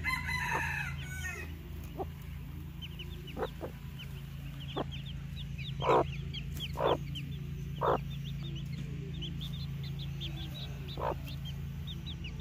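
Hmong chicken chicks peeping continually in short, high, falling peeps, while the hen gives a few separate low clucks, the loudest between about six and eight seconds in.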